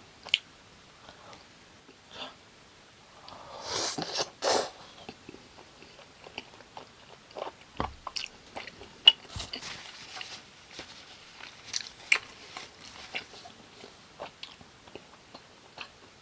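Close-miked eating sounds: biting into and chewing air-fried gimmari and tteokbokki rice cakes coated in spicy sauce, with scattered short crunches and mouth clicks. There is a louder, longer burst about four seconds in.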